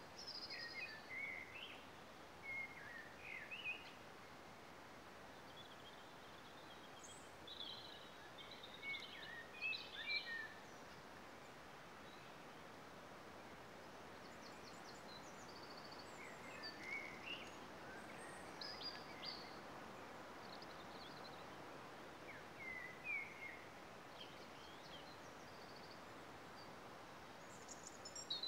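Woodland birds singing in short, scattered chirps and warbles every few seconds over a faint, steady rush of wind in the trees.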